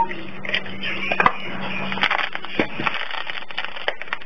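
Crackling, rustling handling noise with many small clicks as a hand squeezes and moves a plush butterfly learning toy with a plastic caterpillar body. A low steady hum runs through the first two seconds.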